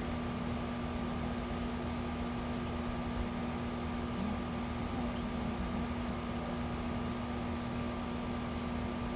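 Steady mechanical hum: a constant drone with a fainter higher tone over an even hiss, with no change in level.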